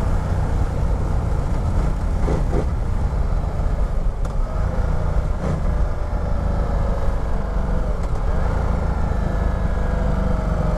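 Ducati Multistrada 1200 DVT L-twin engine running under a closed throttle as the bike slows and shifts down through the gears, with a steady low wind rumble. A faint engine note falls slowly in pitch over the second half.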